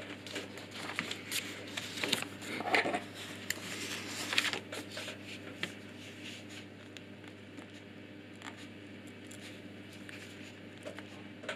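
Pen scratching on paper in short strokes for the first few seconds, as a meter reading is written down, then a few faint ticks and paper sounds. A steady low hum runs underneath.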